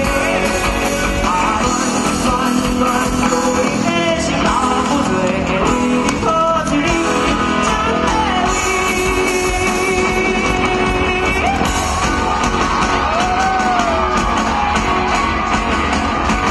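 A live pop-rock band performing through a PA: a male lead vocalist singing over electric guitar, keyboard, bass and drums.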